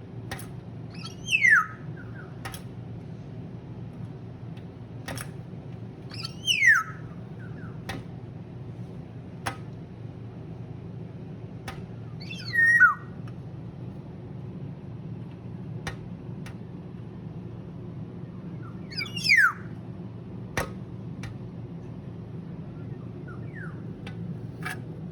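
A bird calling with a loud falling whistle, each about half a second long, four times several seconds apart. Single sharp taps, the beak knocking on window glass, fall one at a time between the calls.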